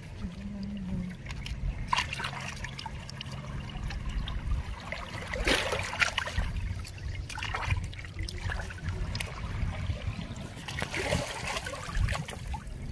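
Water splashing and trickling in several short spells over a low steady rumble, as freshly caught fish are cleaned and rinsed.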